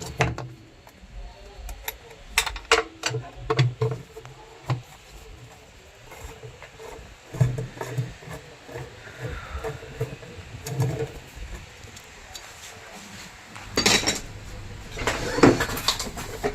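Metal tools and parts clinking and knocking as they are handled, with a cluster of sharp clinks early on and two louder scraping bursts near the end.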